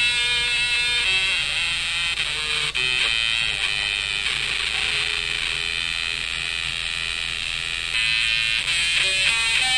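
Electric guitar played through a breadboarded 555-timer modifier circuit fed by an LM386 amplifier stage, with a second 555 as LFO. It gives a harsh, buzzy synth-like tone that follows the played notes, stepping from pitch to pitch, and turns smeary in the middle before clearer notes return near the end.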